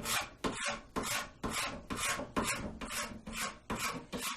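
A hand scraper made from a putty knife scraping down the plastic binding on a guitar body, in quick repeated strokes about three a second.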